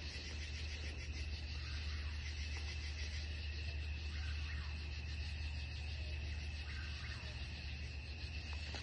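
Night-time chorus of crickets and other insects trilling steadily, a constant high ringing with a fast pulse, over a low steady rumble.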